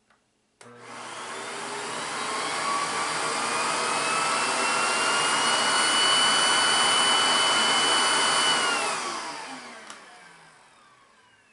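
Vacuum cleaner switched on just after the start, its motor spinning up with a rising whine and loud rushing air. About eight and a half seconds in it is switched off and winds down, the whine falling in pitch as it fades.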